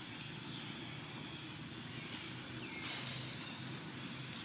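Outdoor ambience: a steady low rumble with several short, high bird chirps scattered through it.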